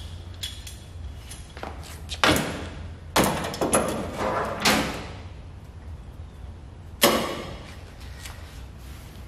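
Sheet-steel patch panel knocking and clattering against the van's body as it is held up and set in place: a sharp knock about two seconds in, a run of clatters between three and five seconds, and another sharp knock about seven seconds in, over a low steady hum.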